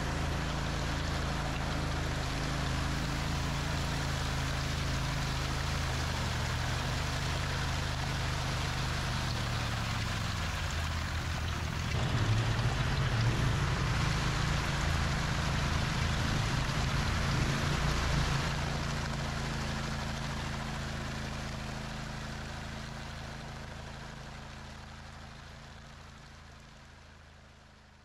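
Construction machinery engine running steadily under a hissing rush of noise. About twelve seconds in it gets louder and its pitch wavers for several seconds, then the whole sound fades out gradually.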